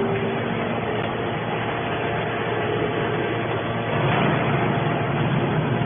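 Hydraulic scrap-metal baler running: steady machine noise, swelling slightly about two-thirds of the way through.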